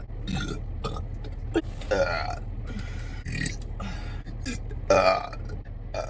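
A person burping over and over: a string of short and longer burps, the loudest about two and five seconds in, over a steady low hum.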